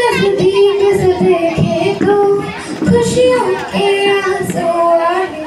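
A girl's or young woman's voice singing a song in long held notes, amplified over a PA loudspeaker.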